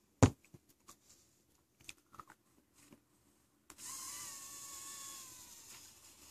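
Rebuildable dripping atomizer firing during a long draw, its coil on a cotton-pad wick giving a steady hiss and sizzle with a faint whistle of drawn air; it starts about three and a half seconds in and fades near the end. A sharp knock just after the start is the loudest sound.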